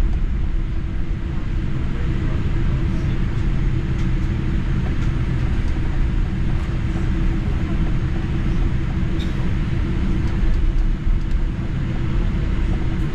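Steady rumble of engines and airflow heard inside the cabin of a Boeing 787-8 Dreamliner, with a constant low hum under an even hiss.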